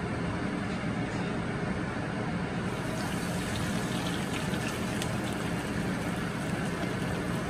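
Homemade potato fries deep-frying in hot oil in an iron wok, sizzling steadily just after a fresh raw batch has gone in.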